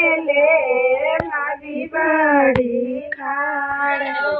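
Women singing a Bhojpuri wedding folk song in high, held voices. There are two short sharp clicks, about a second in and again midway.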